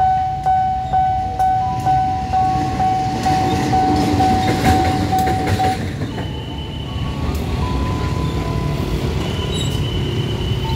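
Railway level-crossing warning bell ringing about twice a second over the low rumble of a CC 201 diesel-electric locomotive passing. A little past halfway the bell stops and motorbike engines take over as the crossing reopens, with a couple of high, steady beeps.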